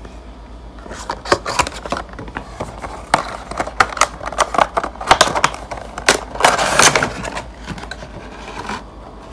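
Hands opening a Funko Pop cardboard box and pulling out the figure in its clear plastic blister tray: irregular clicks, scrapes and crackles of cardboard and plastic, with the densest crinkling about two-thirds of the way through.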